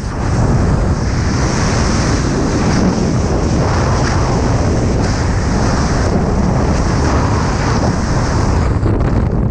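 Rush of freefall airflow blasting over a skydiver's helmet-mounted camera microphone: loud, steady wind noise with a hissing top.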